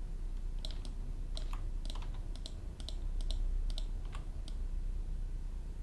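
Computer keyboard and mouse clicking, a couple of irregular clicks a second, over a steady low hum.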